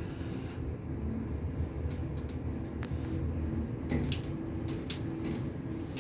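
KONE MonoSpace lift car travelling between floors: a steady low rumble with a faint hum from the drive. A few short sharp clicks come in the second half.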